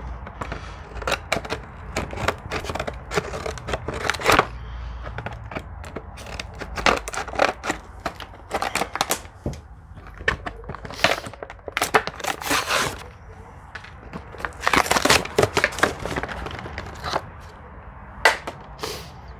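Stiff plastic blister packaging crackling and tearing in irregular bursts as it is worked open by hand, with a few longer stretches of crinkling.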